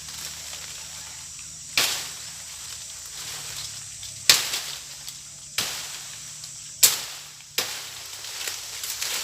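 Five sharp knocks at irregular spacing, each dying away quickly, over a steady high buzz of insects.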